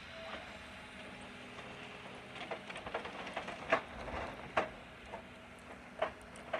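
Distant diesel engines of excavator-based forestry machines running steadily, with a run of sharp knocks and clanks starting about two seconds in and a few single louder ones later, as the machines work in the log piles.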